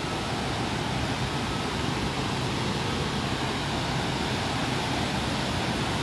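River rapids rushing over rocks below a waterfall: a steady, even roar of water.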